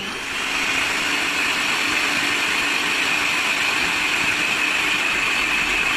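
Electric hand mixer running steadily on low speed, its metal beaters whisking eggs with a pinch of salt in a bowl.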